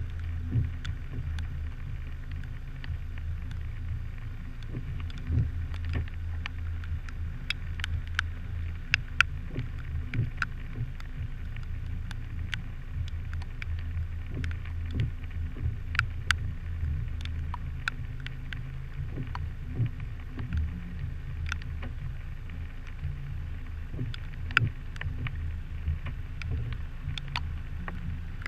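A vehicle engine idling with a steady low drone, heard through a hood-mounted action camera's waterproof housing. Scattered sharp taps and clicks come several times a second throughout.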